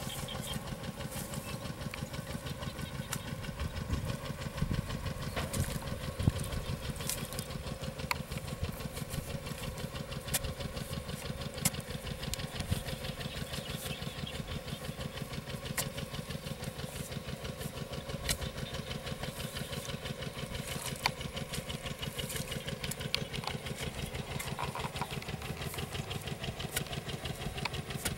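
A small engine running steadily with a rapid, even low beat, with occasional sharp knocks over it.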